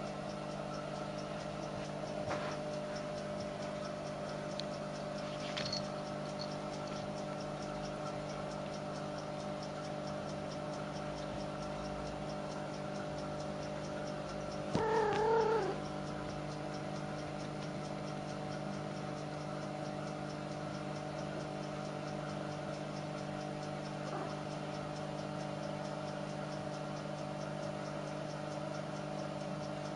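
A single short, wavering kitten meow about halfway through, over a steady hum of several tones that runs throughout. A few faint clicks come early.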